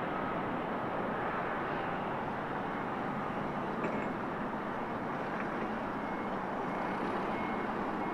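KC-135 tanker's jet engines heard from a distance as a steady, even rush of noise, with a faint tick about four seconds in.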